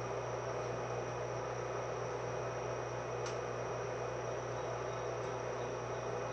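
Steady electrical hum inside a JR West 105 series electric train standing still at a station, its auxiliary equipment running while the traction motors are idle. A thin, steady high insect trill comes from outside.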